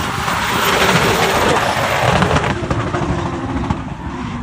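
Drift cars going past sideways at high revs, engines and screeching tyres together, louder over the first two seconds and then easing into a steadier engine note.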